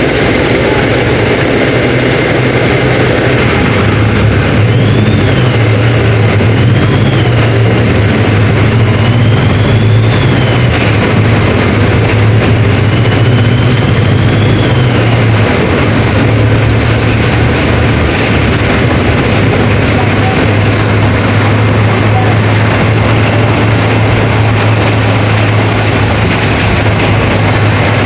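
Mercedes-Benz OF 1721 BlueTec 5 bus diesel engine running under way: a loud, steady low drone that steps up or down in pitch a few times. A faint high whine rises and falls several times in the middle.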